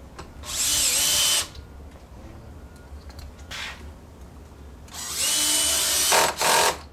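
Cordless drill/driver running in short bursts as it drives screws into the grille surround: one run of about a second, then a longer run and a quick final blip near the end, the motor whine rising as each run starts.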